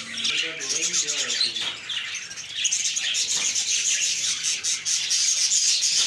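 A crowded flock of caged budgerigars chattering and chirping together, a dense high-pitched twittering.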